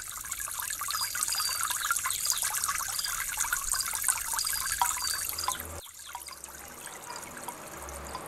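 Trickling water, a steady crackly splashing that drops out for an instant about six seconds in and then goes on a little quieter.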